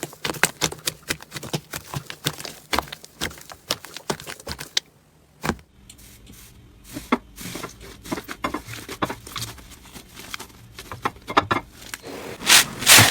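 Slime being squeezed and poked by hand, giving rapid crackling clicks and pops, with a brief lull about five seconds in and a louder crunching stretch near the end.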